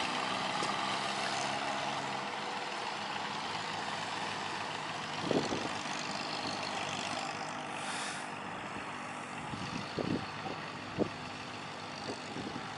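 A long-tail boat's diesel car engine running steadily as the boat backs up, with a few short knocks about halfway through and near the end.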